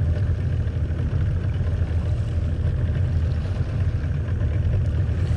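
Small boat's outboard motor running steadily at low speed, a constant low rumble.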